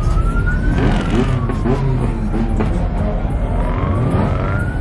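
Police car siren in a slow wail: it rises, falls, and rises again, about one full cycle every four seconds. Under it runs a loud, steady low rumble.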